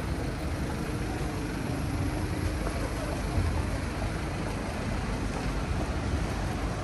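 Busy city street ambience: steady traffic noise with a low rumble of buses and cars passing.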